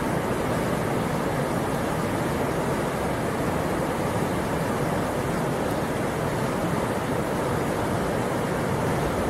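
Steady rushing of whitewater river rapids, an even noise with no breaks.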